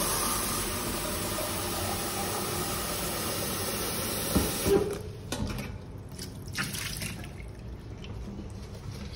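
Kitchen tap running into a plastic tub in a stainless steel sink, water splashing steadily as the tub fills; the flow stops about five seconds in, followed by a few faint knocks.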